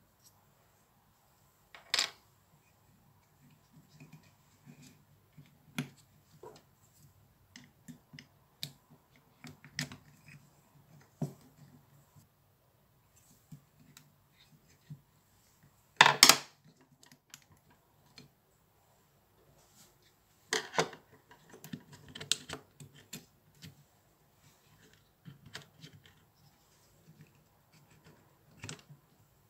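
Small plastic parts of a Makita impact driver being handled and fitted by hand: scattered light clicks, taps and rattles of the switch, connector and housing, with sharper snaps about two seconds in, near the middle and a few seconds after.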